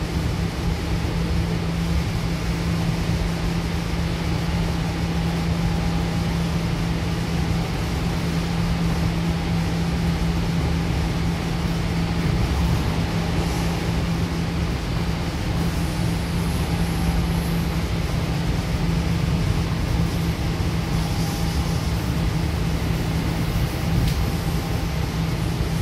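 Interior running noise of a Goninan K-set double-deck electric train travelling on the line: a steady rumble of wheels on track under a constant low hum, with a few faint high squeaks.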